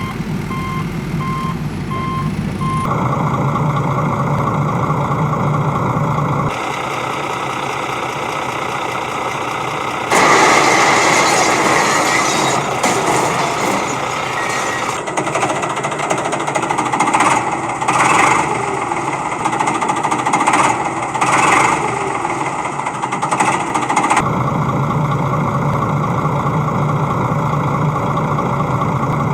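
Heavy-vehicle sound effects: a truck's reversing beeper repeating for the first few seconds, then a diesel engine running. In the middle stretch the engine gives way to rougher, noisier sound with irregular surges, before settling back to a steady run near the end.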